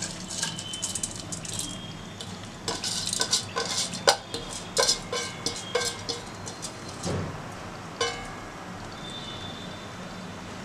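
Steel bowl knocking and clinking against the rim of an aluminium pot as rice is tipped and scraped into it: a quick run of ringing metallic knocks in the middle, and one more a couple of seconds later.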